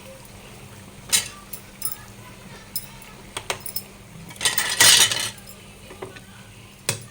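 A metal spoon clinking and scraping against a cooking pan as hot tempering is moved into the dal, a few separate knocks and one louder hissing scrape about four and a half seconds in.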